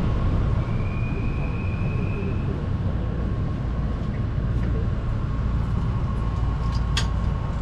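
Steady low rumble and hum of a commuter train standing at a station platform, with a brief high steady tone about a second in and a single sharp click near the end.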